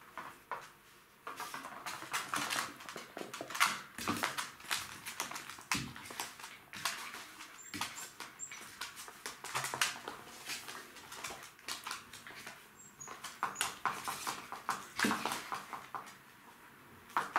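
Jack Russell Terrier puppies playing with their mother: irregular flurries of claws scrabbling, clicking and scuffling on a laminate floor and the bed.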